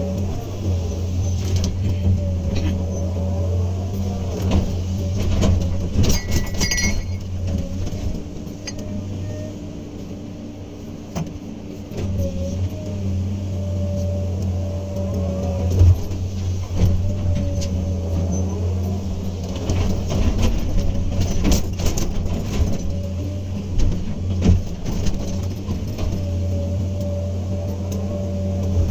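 Komatsu PC200 hydraulic excavator's diesel engine running under load, a steady low hum, with scattered clanks and knocks from the digging and loading. The engine eases off about eight seconds in and picks up again around twelve seconds.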